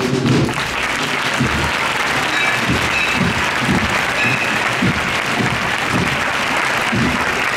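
Crowd applauding, a dense steady clapping.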